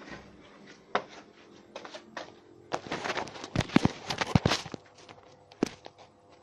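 Knocks, clatter and rustling of a person moving about and handling things, with a dense run of sharp knocks and clatter from about three to four and a half seconds in, and single knocks about a second in and near the end.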